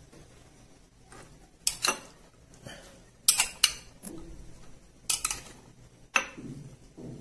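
Metal spoon clinking against a glass bowl and a ceramic serving dish while spooning out bean salad: about six separate sharp clinks with short pauses between them.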